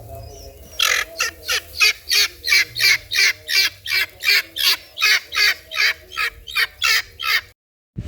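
A bird giving loud, harsh squawking calls in a rapid, even series of about three a second, cut off abruptly near the end.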